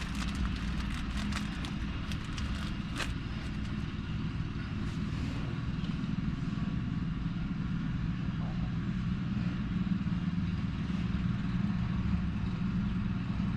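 A steady low mechanical hum like a running motor, with light clicks and taps in the first few seconds and one sharper click about three seconds in.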